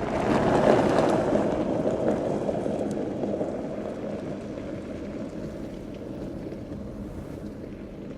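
Skoda Octavia Scout driving off-road: a rush of engine and tyre noise that comes in suddenly, is loudest about a second in, then slowly fades.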